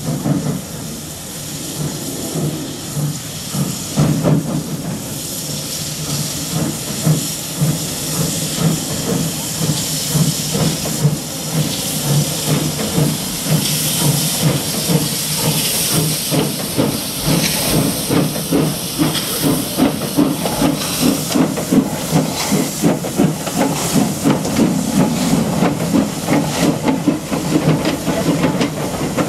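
Industrial saddle-tank steam locomotive pulling away with a coach, its exhaust chuffing in a regular beat that grows louder as it draws near and passes. Steam hisses from its cylinder drain cocks, and a high hiss cuts off suddenly about two-thirds of the way in.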